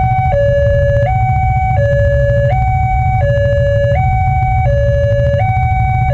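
Railway level-crossing warning siren from a pole-mounted loudspeaker, alternating between a higher and a lower tone, each held for under a second, warning that a train is approaching. A low rumble runs underneath.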